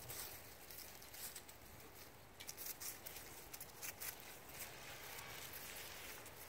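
Faint rustling and scuffing of two Cavalier King Charles spaniel puppies' paws scrambling over dry fallen leaves and stone as they tussle over a toy, with scattered soft clicks and crackles.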